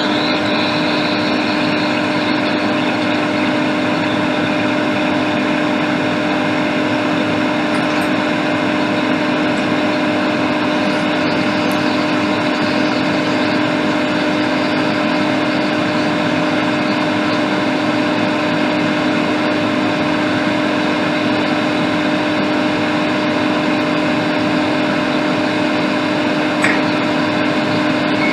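Hot air rework station blowing steadily with a constant hum, heating a new over-voltage protection IC to solder it onto a laptop logic board.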